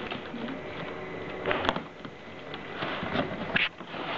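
Cardboard shipping carton being pulled open by hand: a rustling, scraping noise of the flaps and tape, with a couple of sharper rips about a second and a half in and near the end.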